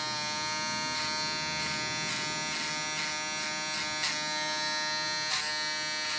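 Andis electric foil shaver buzzing steadily as it is run over closely faded hair behind the ear, blending out clipper lines. There are a couple of brief spikes in the sound about four and five seconds in.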